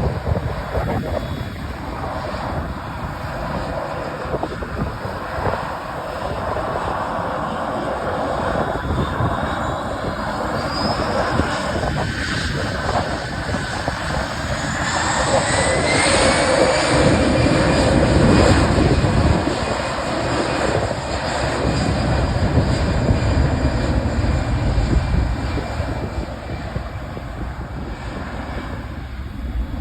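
Airbus A320-214's CFM56 turbofan engines spooling up with a rising whine, then loud jet noise with a deep rumble that peaks about two-thirds of the way through and eases off.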